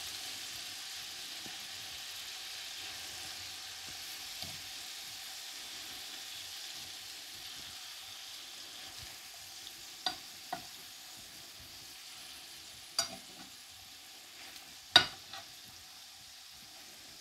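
Chicken leg pieces sizzling in hot sunflower oil in a frying pan, the sizzle slowly getting quieter. A few sharp clinks of a metal fork against the pan as the pieces are turned, the loudest about fifteen seconds in.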